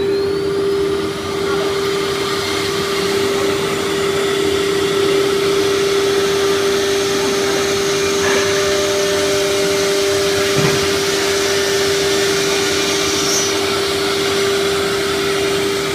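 Philicam F2-9 CNC nesting router's spindle running at speed while it cuts a laminated wood-grain panel: a steady high whine over a constant rushing noise.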